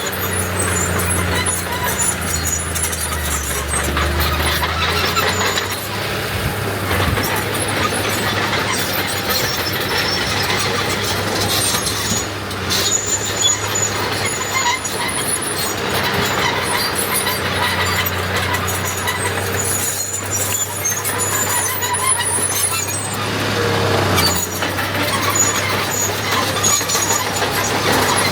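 Heavy earthmoving machinery at work: a diesel engine running steadily with continuous high-pitched metal squealing and clanking. The low engine note is strongest in the first few seconds and again past the middle.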